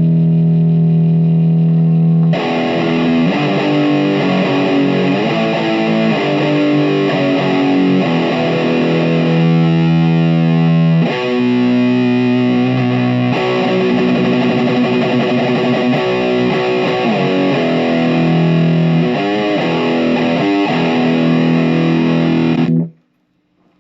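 Electric guitar played through a Marshall MG15MS II micro stack with its two new Celestion speakers, a VT Junior and a second speaker, blended together. A chord rings for about two seconds, then chords and riffs play on and stop abruptly near the end.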